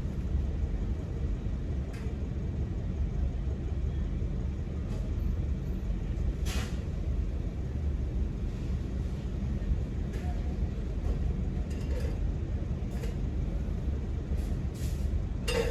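Low, steady rumble of a car idling, heard from inside the cabin, with a few faint clicks.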